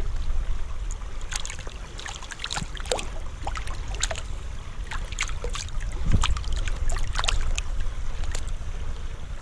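Shallow river water splashing and sloshing as a hand-held cross of green sticks lashed with sisal rope is dunked and swished about to soak the lashing, with small sharp splashes at irregular moments.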